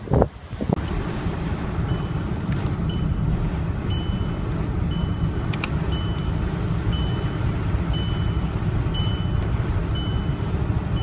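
A brief loud gust of wind on the microphone, then the steady low rumble of a car driving, heard from inside the cabin. A short high electronic warning beep sounds about once a second.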